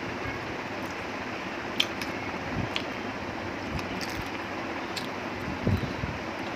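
A person eating a chicken leg: chewing and gnawing at the bone, with a few sharp mouth clicks and smacks, over a steady background hiss. A low thump comes near the end.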